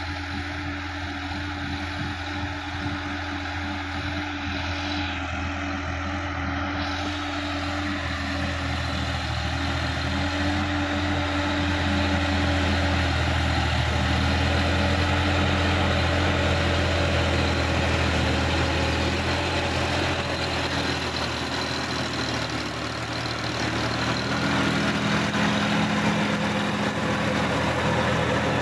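Sonalika DI-50 RX tractor's diesel engine running steadily under load as it pulls a rotary tiller through dry paddy-field soil. It grows louder over the first dozen seconds or so as the tractor draws near.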